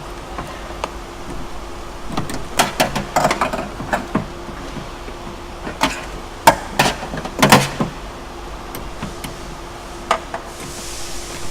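Irregular clicks and knocks of the door-lock rods and clips being worked by hand inside a Lexus GX470 door, trying to hook the rod to the key cylinder. They come in two bursts about two and six seconds in, with one more knock near the end.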